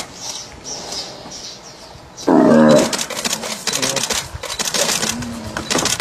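A loud, snarling animal call bursts out about two seconds in, as an African buffalo tramples and gores a lion. Rapid sharp clicks and shorter calls follow.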